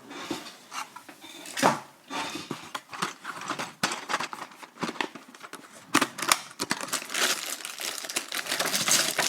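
Plastic keycaps being handled in their plastic bag: crinkling plastic with many small clicks and rattles of keycaps knocking together, a few sharper knocks about two seconds in and around six seconds.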